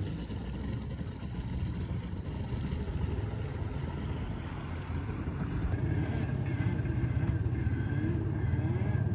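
Stand-up jet ski engine running as the craft pulls away across the water. After a cut about six seconds in, the engine is heard further off, steadier and stronger, its pitch wavering up and down.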